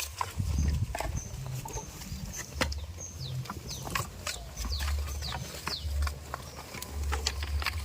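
Farmyard animal sounds: many short high chirps and falling squeaks, with a few clicks, over a low rumble that comes and goes.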